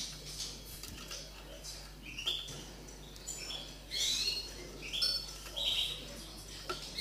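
Linnet × canary hybrid (mule) singing: short twittering phrases of quick chirps and trills, coming about once a second.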